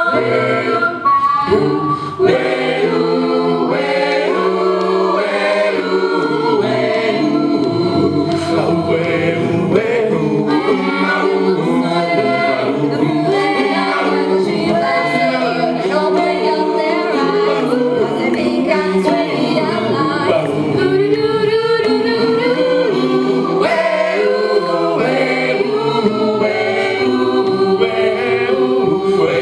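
A small mixed choir of about a dozen male and female voices singing a cappella in sustained chords, each singer on a handheld microphone amplified through PA speakers.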